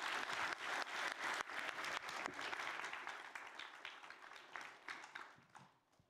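Audience applauding, a dense patter of many hands clapping that fades away over the last couple of seconds.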